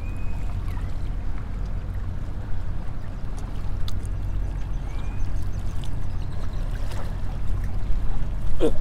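Small waves lapping against the rocks of a jetty, under a steady low rumble.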